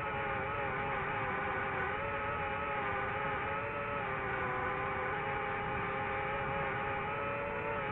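DJI FPV drone's motors and propellers whining steadily in flight, several tones held with slight rises and falls in pitch.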